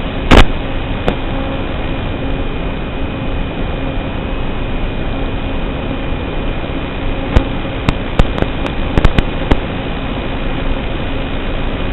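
Steady hiss with a faint whine from a small electric-motor FPV craft, broken by sharp clicks or pops: a loud one about half a second in, then a cluster of several from about seven to nine and a half seconds in.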